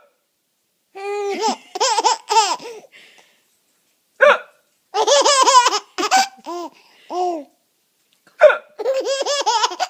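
A man's fake hiccups, twice about four seconds apart, each setting off a run of an overtired baby's uncontrollable belly laughter in high-pitched, wobbling bursts.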